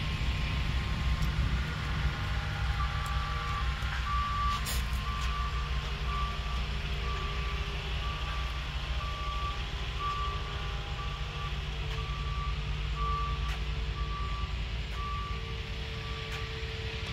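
A vehicle's reversing alarm beeping, a steady series of short evenly spaced beeps that starts a few seconds in, over a low steady rumble.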